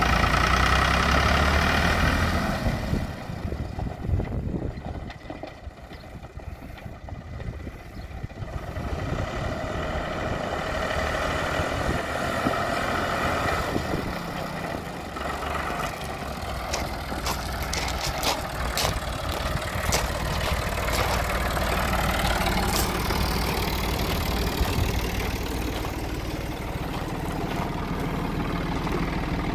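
John Deere 5410 N tractor's four-cylinder diesel engine running. It is loud at first, fades a few seconds in as the tractor moves off, then grows louder again and settles into a steady idle. Scattered clicks come in the second half.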